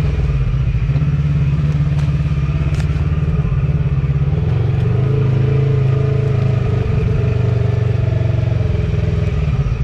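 Polaris RZR Turbo XP side-by-side's turbocharged engine running at a fairly steady pitch while driving.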